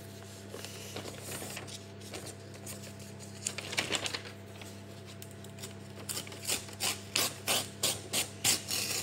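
Sheets of printer paper rustling and crinkling as they are handled, with a run of quick, evenly spaced rustles, about two a second, in the last few seconds. A steady low hum runs underneath.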